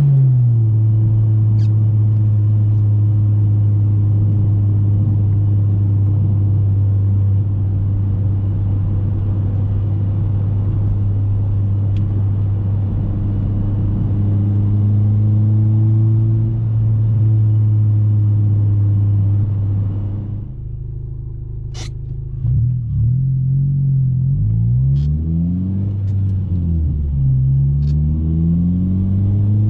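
2014 Honda Civic Si's 2.4-litre four-cylinder engine, with an Invidia N1 exhaust and a KTuned short ram intake, running at a steady engine speed under road noise. About twenty seconds in the road noise drops away and the engine settles lower, then its pitch rises and falls several times as the revs climb and drop. A few sharp clicks come through, the clearest about twenty-two seconds in.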